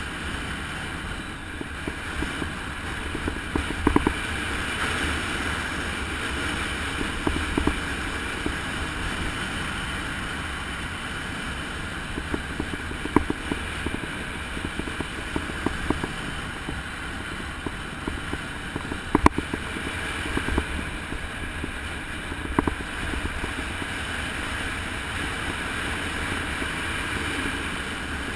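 Steady rush of wind over the microphone with road rumble from a fast downhill ride, broken now and then by short sharp knocks, loudest about four seconds in and again near the middle.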